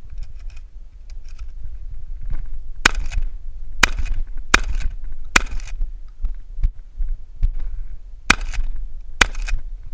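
Shotgun firing six shots in quick succession. Four come about a second apart, then after a pause of nearly three seconds two more. Each has a short echo after it.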